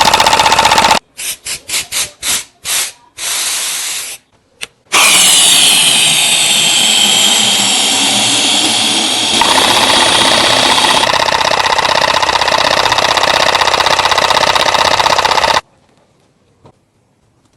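Small electric motor running: switched on in about seven short bursts, then running steadily for about ten seconds, its whine dropping in pitch as it settles, before cutting off suddenly.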